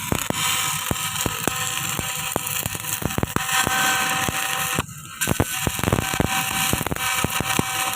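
Electric arc welding on a horizontal pile-joint weld: the arc's steady crackle and sizzle with many sharp pops, breaking off for about half a second near the middle before it strikes again.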